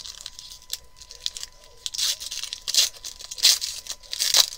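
Foil wrapper of a Panini Prizm trading-card pack being torn open and crinkled by hand, in a series of short crackling rips that grow louder in the second half.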